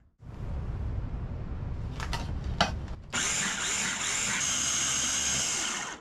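Low rumble of wind buffeting the tent with a few sharp clicks, then about three seconds in a Hamilton Beach food processor's motor starts and runs steadily with a high whirr, chopping basil, garlic and pine nuts into pesto.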